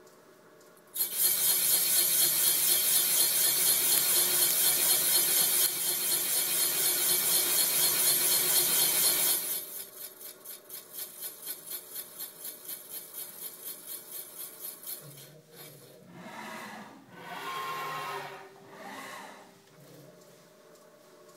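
Machine tool cutting an O-ring groove into the deck of a Honda B18 engine block: a loud, evenly pulsing rasp of the cutter in metal for about eight seconds, then a quieter pulsing as the cut eases off, with a few softer swells near the end.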